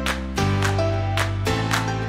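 Instrumental background music with a steady beat and sustained chords.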